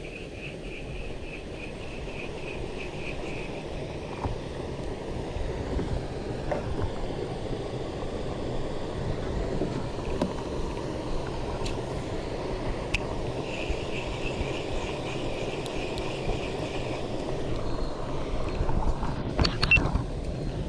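Steady low outdoor rumble with insects chirping in a rapid pulsing trill, heard at the start and again about two-thirds of the way through. A short, louder burst of noise comes near the end.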